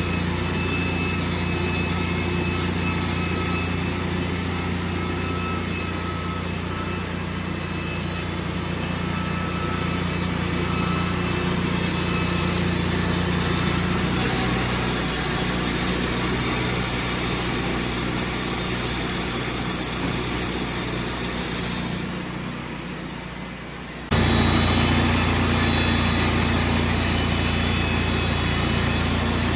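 Wood-Mizer portable band sawmill running, a steady engine hum with a high hiss above it. The hum shifts about halfway through, dips near the end, then comes back abruptly.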